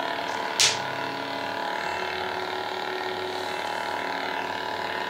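Lightsaber sound board humming steadily through the hilt's built-in speaker while the saber is ignited, with one brief sharp effect sound about half a second in.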